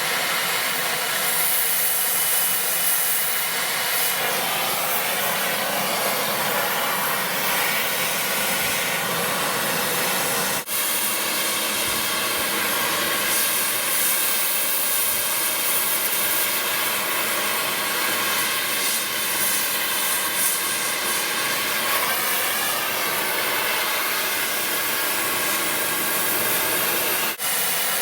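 A machine running steadily with a loud hiss and a continuous hum, dropping out for a moment twice, about ten seconds in and near the end.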